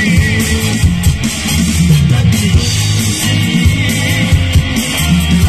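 Live band playing loud rock music on electric guitars and a drum kit, amplified through the stage sound system.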